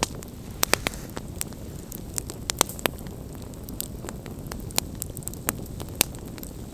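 Wood campfire crackling: irregular sharp pops from burning logs over a steady low rush.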